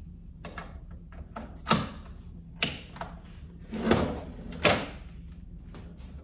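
Four sharp knocks and clunks as the Sawgrass SG500 sublimation printer is handled, its lids and trays being moved.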